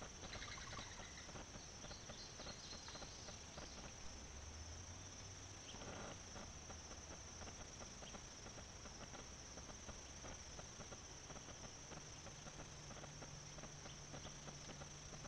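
Faint, steady high-pitched summer insect chorus, with scattered faint ticks and a low hum in places.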